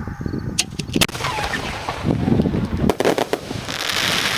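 12-inch aerial fireworks shell with rising effects: a few sharp reports about half a second to a second in, more bangs about three seconds in, then a dense crackling hiss as the stars burst near the end.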